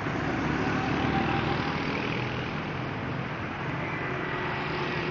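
Road traffic on the street beside the park: a steady rush of vehicles going past, swelling slightly about a second in.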